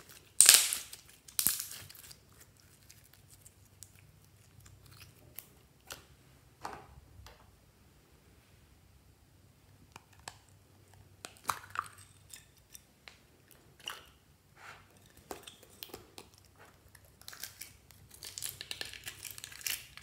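Hands squeezing and kneading clear slime packed with beads, making sticky crackling and squelching noises, loudest in the first two seconds. Scattered clicks of a small plastic slime tub being handled follow, then a dense wet crackle near the end as slime is pulled out of the tub.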